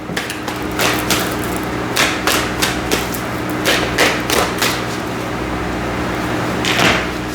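Tarot cards being handled and laid down on a table: a string of irregular light taps and clicks, over a steady low hum.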